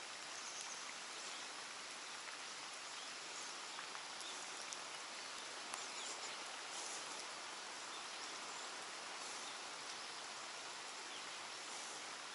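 Light rain falling on the water and wet concrete: a steady even hiss with a few faint ticks.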